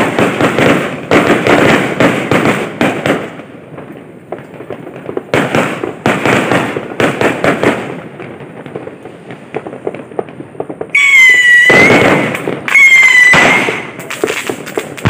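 Fireworks and firecrackers going off in waves of rapid crackling bangs, strongest at the start and again around five to eight seconds in. Near the end come two loud whistling tones, each about a second long.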